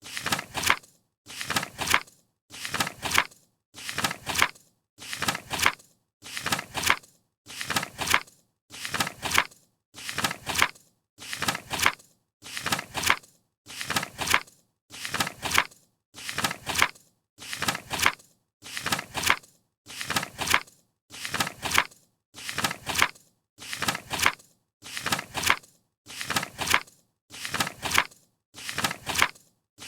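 A paper page being turned, the same short rustle repeated about every 1.2 seconds, each one swelling to a crisp flick at its end with silence between.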